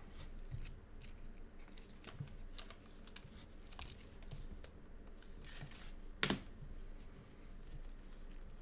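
A stack of glossy trading cards handled in gloved hands: faint clicks and rustles as card edges tap and slide past one another, with one louder tap a little past six seconds in.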